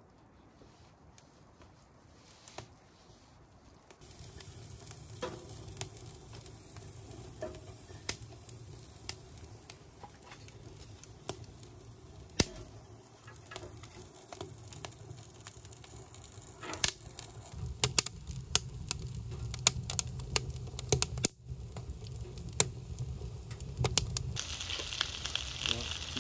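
Wood stove fire crackling with scattered sharp pops. Near the end, potato wedges sizzling in a cast iron skillet on the stove top, with a brighter steady hiss.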